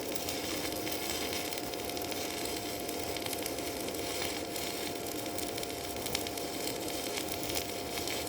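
Electric arc welding: the arc crackles and sizzles steadily as a bead is laid, with a faint steady whine from the equipment.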